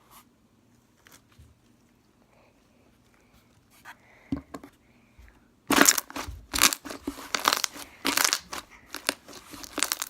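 Slime being pressed, giving a few faint ticks, then a loud, dense run of quick crackles and pops starting a little past halfway.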